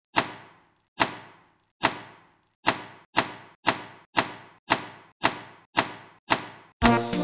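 Eleven heavy clunks, each with a fading echo: the sound effect of big stadium floodlights switching on bank by bank. The first four come slowly and the rest about two a second. Brass music starts near the end.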